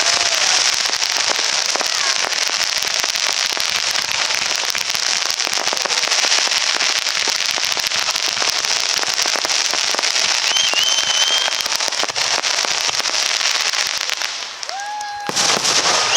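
Aerial fireworks crackling densely, a continuous rapid crackle of many small bursts, which thins out briefly near the end before a new loud burst goes off.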